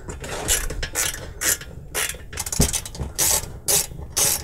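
Hand screwdriver backing out Phillips screws from a reflow oven's sheet-metal case, a short rasping click on each turn of the wrist, about two to three a second. One duller knock a little past halfway.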